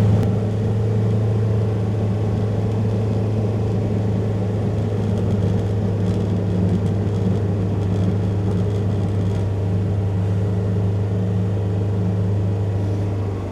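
Polaris Ranger XP 1000 UTV's twin-cylinder engine running steadily under load, heard from inside the cab, as the front plow pushes heavy wet snow. Near the end the engine's pitch and level drop as it eases off.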